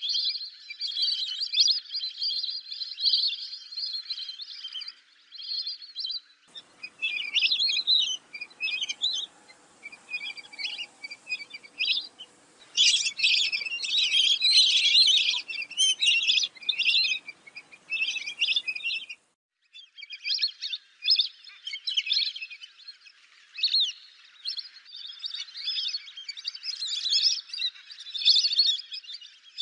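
Lesser whistling ducks calling: rapid, high-pitched whistled calls coming thick and overlapping. The recording changes abruptly about six seconds in and again just before twenty seconds, as separate recordings are spliced together.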